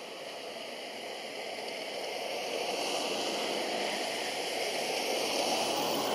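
Steady rain falling on grass and foliage, a continuous hiss that grows louder over the first half and then holds steady.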